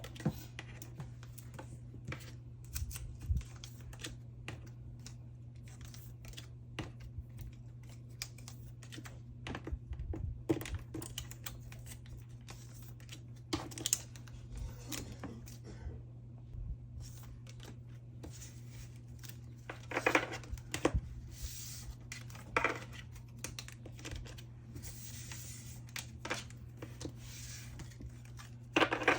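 Plastic photocard sleeves and cards handled up close: scattered light taps and clicks with short crinkly rustles as cards are slid out of their sleeves. The rustling is busiest about two-thirds of the way through.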